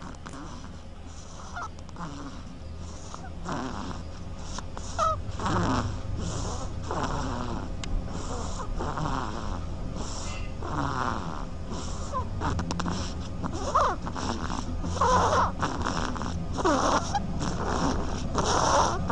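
Ducks making snore-like sounds: noisy, breath-like rasps repeating irregularly about once or twice a second, growing louder toward the end, over a steady low hum.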